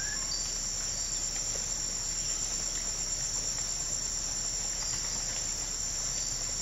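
Steady, high-pitched insect chorus that does not let up.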